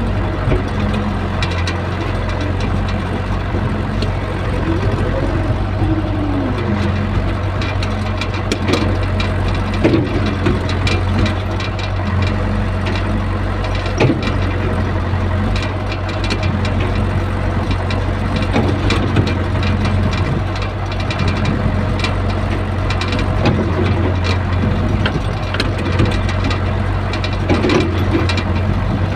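Mini excavator's diesel engine running steadily, heard close up from the operator's seat, its note shifting as the hydraulics move the boom and bucket. A few sharp knocks stand out, loudest around the middle.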